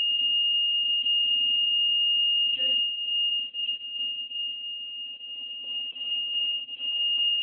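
Motorola Minitor III pager sounding its alert tone in test mode: one steady, unbroken high-pitched tone, wavering in loudness partway through.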